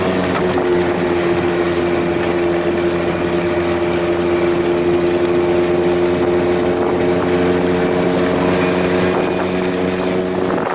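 Small engine of a three-wheeled GoCar running steadily while driving, with a constant hum and traffic noise around it; the tone dips slightly about half a second in, then holds even.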